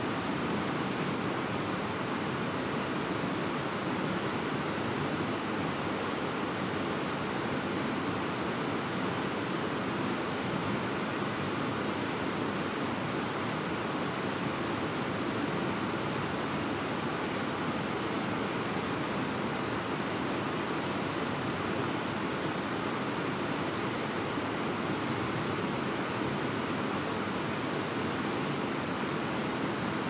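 Fast-flowing mountain river rushing over rocks: a steady, unbroken wash of water.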